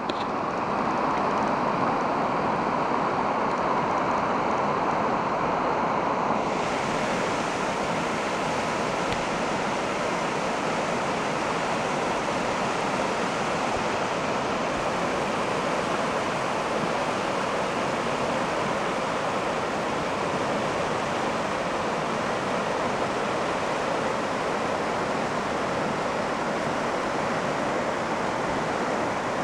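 River water rushing steadily over shallow rocky shoals. The sound turns brighter about six seconds in.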